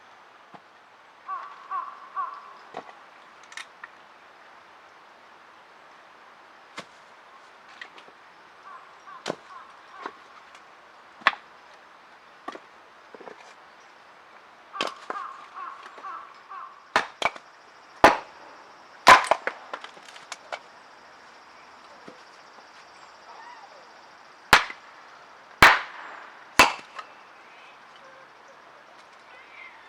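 Irregular sharp knocks and clacks, a dozen or more spread out with gaps of a second or more, the loudest coming in a run from about 17 to 27 seconds in.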